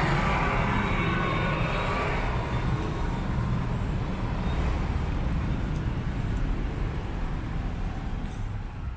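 Steady rumble of busy road traffic close by: engines of cars, vans and buses with tyre noise on the road, a little louder in the first two seconds.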